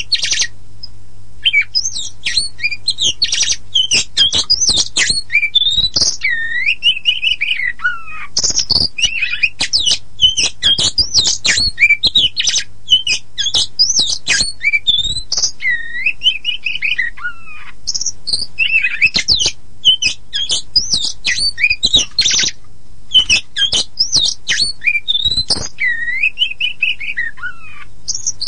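Oriental magpie-robin (kacer poci) singing a loud, varied song of whistles, quick chattering runs and rising and falling sweeps, broken by a few short pauses. A faint steady low hum lies underneath.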